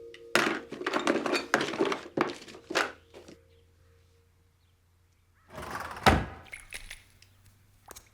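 A rapid burst of knocking and clattering for about three seconds, then, after a pause, a short rush of noise ending in one heavy thump about six seconds in.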